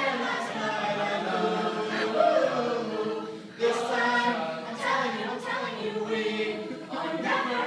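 Mixed-voice a cappella group singing together in harmony, with no instruments, the sound dipping briefly about three and a half seconds in before the voices come back in.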